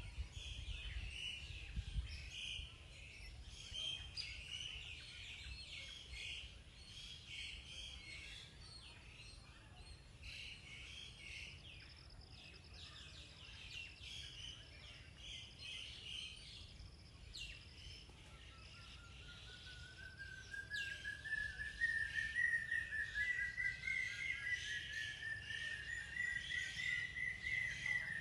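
Many small birds chirping in quick, overlapping short calls. About two-thirds of the way in, a long wavering whistle joins them, rising slowly in pitch and getting louder toward the end.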